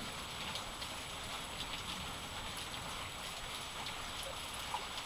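Steady watery hiss of shallow floodwater, with a few faint scattered drips.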